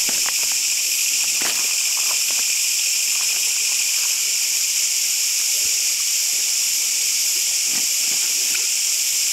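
Dense, steady high-pitched hiss of a night insect chorus, with a few faint rustles and knocks from someone getting into a tent.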